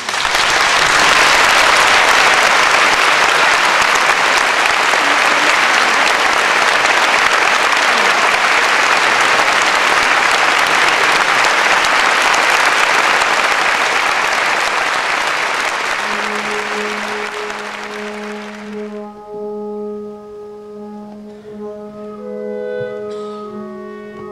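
Audience applauding, loud and steady. Near the end an orchestra comes in with long held notes and the applause dies away.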